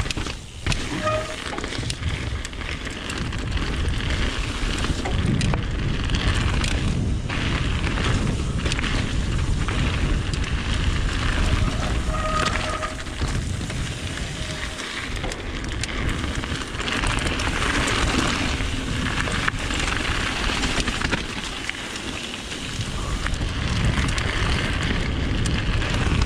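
Trek Remedy mountain bike descending a loose gravel and stone trail at speed: the tyres crunch over the stones and the bike rattles with frequent small knocks. The noise eases briefly near the end, then builds again.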